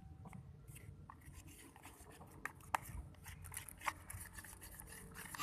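Faint scattered clicks and light scraping from a slime mixture of glue and shampoo being stirred and handled in a bowl, with a few sharper ticks in the middle.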